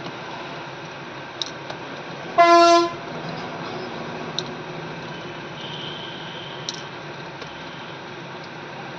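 A single short horn toot lasting about half a second, a couple of seconds in, over a steady background hum. A few faint clicks come through around it.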